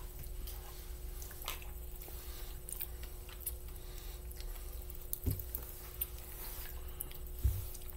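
Faint mouth sounds and scattered small crackles as green apple Warheads popping candy pops in the mouth, over a faint steady hum, with a couple of soft low knocks.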